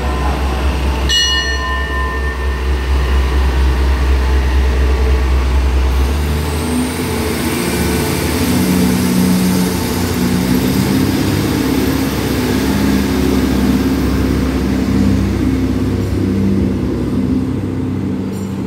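Diesel railcar train idling at the platform with a deep steady hum, then about six seconds in its engines rev up with a rising whine as it pulls away, running on steadily as it departs.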